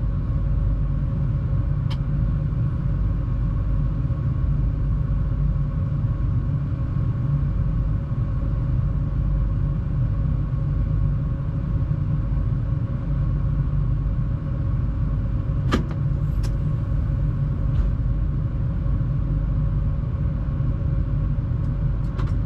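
Steady low rumble and hum of a locomotive heard from inside its cab, with a few sharp clicks about two seconds in and twice around sixteen seconds in.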